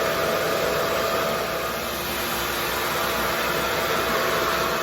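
Revair reverse-air hair dryer running steadily: a constant rush of drawn-in air with a faint steady hum.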